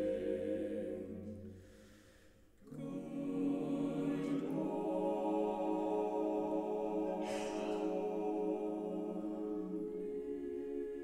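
Mixed choir singing a cappella: a held chord dies away to a brief hush about two seconds in, then the choir comes back in on a new chord and holds it.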